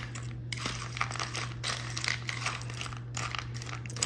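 A plastic spoon stirring dry dog-food kibble and cereal pieces in a plastic bowl: a dense run of small clicks and rattles, with a steady low hum underneath.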